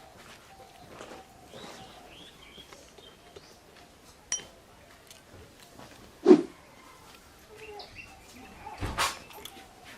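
Birds chirping lightly in the background. A single loud dog bark comes about six seconds in, and a sharp knock follows near the end.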